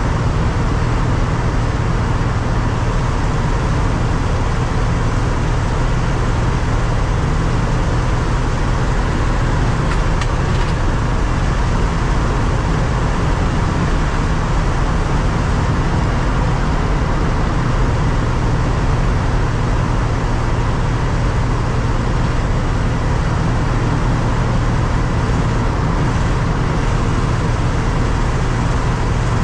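1987 Ford F-150's 300 inline-six running at a steady speed on the road, with steady road noise.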